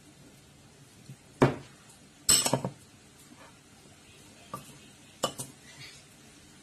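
Metal spoon clinking and scraping against a ceramic bowl while stirring raw pork pieces in marinade. There are a handful of sharp clinks: a loud one about a second and a half in, a quick cluster just after two seconds, then a few lighter taps.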